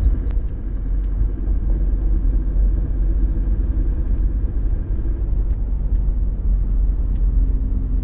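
Car being driven, heard from inside the cabin: a steady low rumble of engine and road noise.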